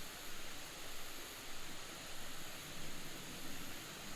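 Steady hiss of flowing water from a small creek waterfall.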